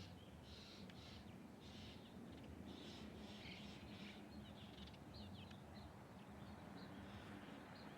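Birds calling faintly: a series of short raspy calls through the first half, then thin quick chirps, over a low steady hum.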